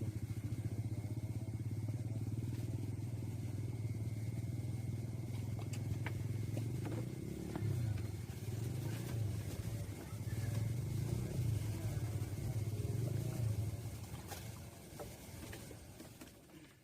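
A small engine running steadily, its pitch and strength wavering a little, then fading out near the end.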